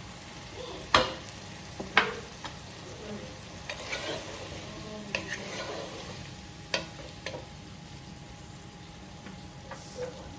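Chicken curry sizzling in a pot while it is stirred, the spoon knocking sharply against the pot several times, loudest about one and two seconds in.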